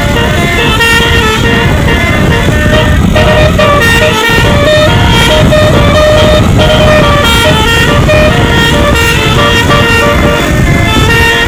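A tour bus's Basuri telolet horn playing a melody: several horn pitches sound together and step from note to note, over a loud low rumble.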